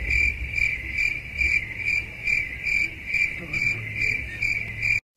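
A steady run of high-pitched chirps, about two and a half a second, like a cricket's song, cut off abruptly near the end.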